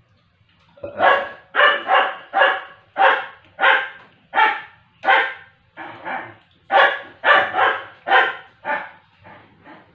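A dog barking over and over, about two loud barks a second, starting about a second in and growing weaker near the end.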